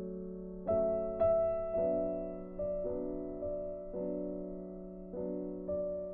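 Background piano music: soft, slow notes struck about one or two a second, with chords held under them.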